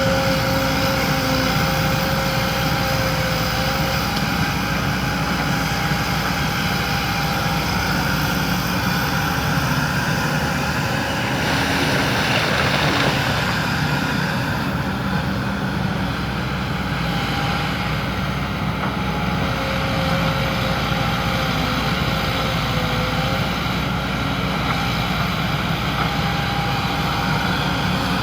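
Excavator's diesel engine running steadily at work, with faint whining tones that come and go and a louder rushing stretch about twelve seconds in.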